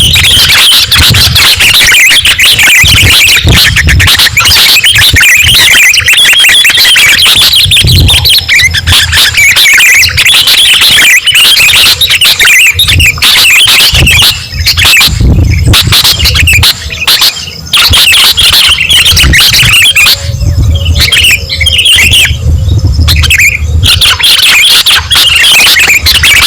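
Sooty-headed bulbuls (kutilang) calling and chattering, a dense run of quick, bright notes played as a loud lure recording, with low thuds underneath.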